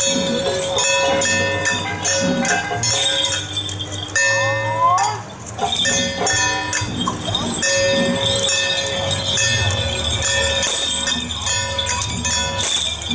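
Small metal bells on the chains of Ba Jia Jiang performers' ritual implements jingling steadily as the performers dance and swing them, over procession music with long held notes.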